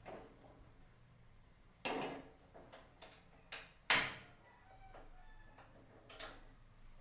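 A handful of sharp knocks and clinks of kitchenware, the loudest about four seconds in.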